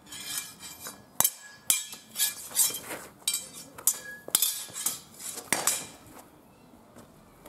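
Steel training swords and bucklers clashing in a fast sword-and-buckler sparring exchange: a quick run of a dozen or so sharp metallic clanks with a brief ring after each, stopping about six seconds in.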